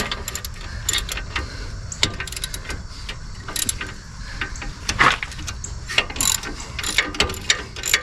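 Hand ratchet wrench clicking in irregular runs of strokes as it works a bolt on the brake assembly.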